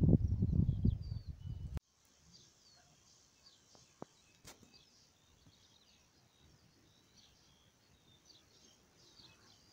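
Low, gusty rumble of wind on the microphone that cuts off abruptly about two seconds in. After that, faint bird chirps and twitters, with a couple of faint clicks.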